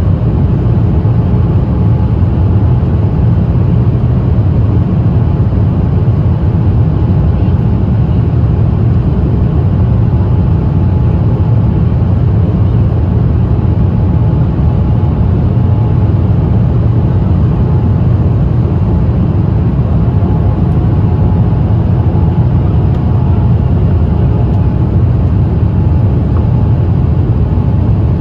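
Steady low rumble of airflow and jet engines inside the cabin of a Boeing 787-8 descending on approach with flaps extended, with a faint steady tone above it.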